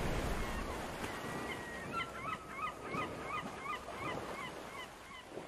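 An animal's short calls repeated about three times a second, each rising and falling in pitch, after a brief steady whistle, over a steady hiss.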